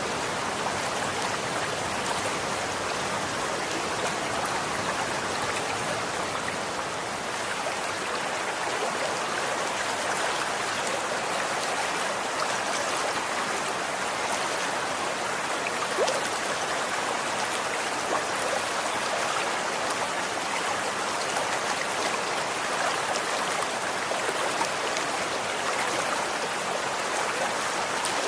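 Running water flowing steadily, an even rushing noise with small splashes and drips mixed in and one slightly louder splash about halfway through.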